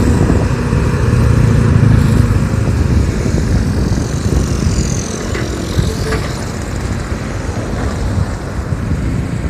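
Diesel engine of a Volvo EC210B crawler excavator running under load while it works, loud for the first few seconds and easing somewhat after about five seconds.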